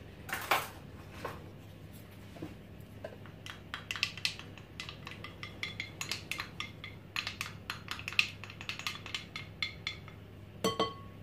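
A small wooden spoon tapping and scraping against a ceramic bowl while scooping out yogurt: a run of light clicks and knocks, with a louder knock just after the start and another near the end.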